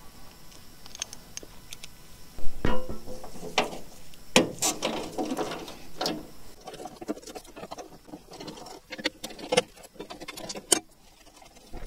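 Irregular metallic clicks, clinks and knocks as a socket wrench works the bolts of a mini excavator's steel foot panel, with a few louder knocks about two and a half and four and a half seconds in.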